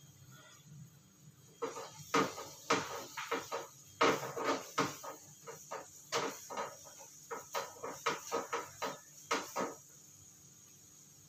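Spatula knocking and scraping against a frying pan in quick, irregular strokes as garlic is stir-fried in hot oil. It starts about a second and a half in and stops near the end.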